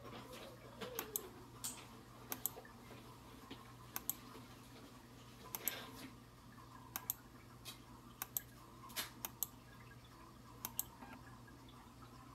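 Irregular sharp clicks of a computer mouse, about fifteen of them and some in quick pairs, over a steady low electrical hum.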